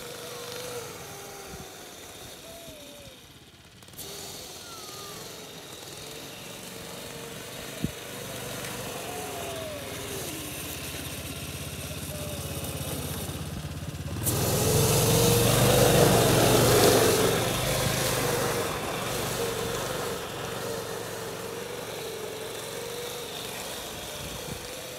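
Small youth snowmobile engine (Yamaha SRX 120) running as the sled is ridden around, its pitch rising and falling with the throttle. About halfway through it gets louder for a few seconds, with a rushing noise under the engine.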